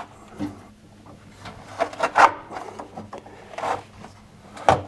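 A new washing machine heater element being pushed into its hole in the plastic tub, making a few separate short knocks and rubbing scrapes, the loudest knock near the end.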